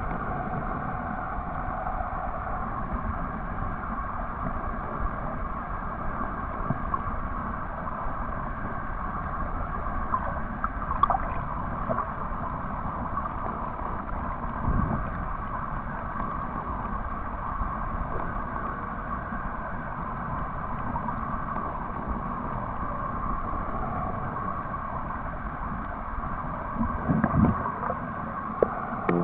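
Muffled underwater ambience picked up by a camera submerged on a shallow reef: a steady low rumble and hiss, with a few brief knocks now and then.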